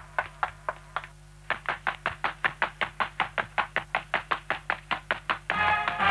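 Cartoon sound effect of quick, evenly spaced footsteps, about five steps a second, with a short break about a second in. Music comes in near the end.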